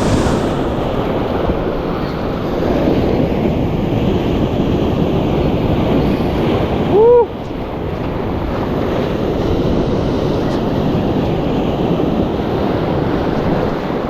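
Steady surf and wind buffeting the microphone. About halfway through there is one brief, loud squeak that rises and falls in pitch.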